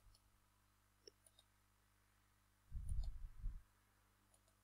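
A few faint computer mouse clicks, and a dull low bump lasting under a second a little past halfway.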